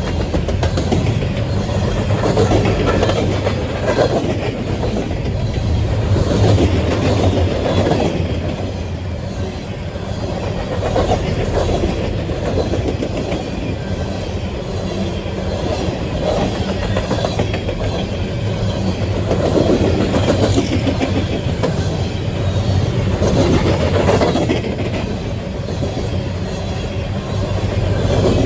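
Loaded coal hopper cars of a CSX coal train rolling past at speed, a steady rumble of steel wheels on rail with clickety-clack over the rail joints, swelling and easing every few seconds as the cars go by.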